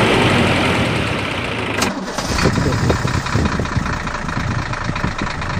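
An engine running with a steady hum. About two seconds in the sound cuts abruptly and carries on rougher, with uneven low knocks.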